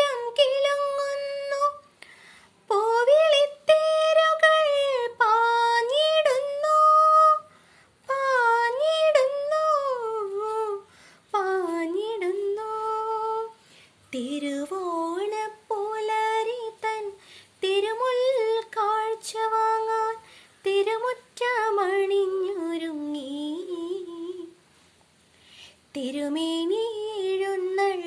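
A young woman singing a Malayalam Onam song solo, without accompaniment. She sings in long phrases of gliding, wavering notes, with brief breaks for breath between lines; the longest break comes about three-quarters of the way through.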